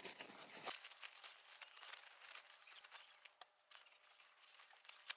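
Faint rustling and crinkling of a paper tissue and nitrile-gloved hands wiping down an aluminium part, mostly in the first second and then only small scattered rustles.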